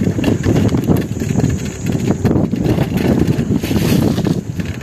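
Mountain bike rolling fast over a rough, rutted dirt track: a dense low rumble with a steady run of small rattles and knocks from the frame, with wind buffeting the microphone.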